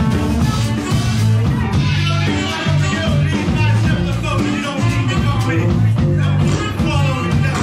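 Live band playing an upbeat rock song, with electric guitar, saxophone, drums and a stepping bass line under singing.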